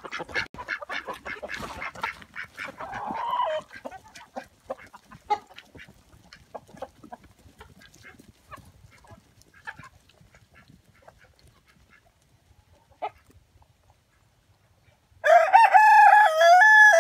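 Chickens clucking in short scattered calls, busiest in the first few seconds and thinning out. Near the end a rooster crows, one long loud crow that is the loudest sound.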